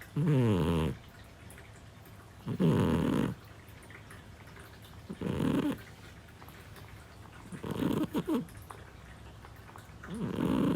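A Scottish Fold cat snoring in her sleep: five low snores about two and a half seconds apart, each under a second long, the fourth breaking into a short flutter.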